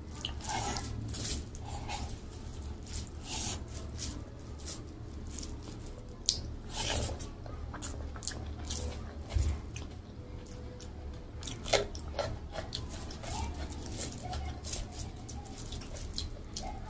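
Close-miked eating sounds: irregular wet squelches and clicks of fingers mixing rice with mashed vegetable bharta, with chewing and lip smacks.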